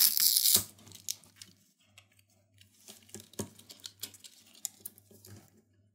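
Phone battery adhesive strips tearing loose in a brief hissing rip, then faint scattered clicks and rustles of small parts being handled.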